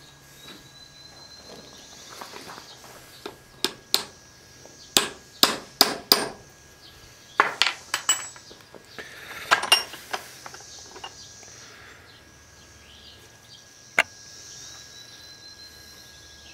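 A small chisel cutting a barb into a steel finish nail clamped in a vise: sharp metal-on-metal taps in quick clusters of two to four, about a dozen in all, then one last single tap a few seconds later.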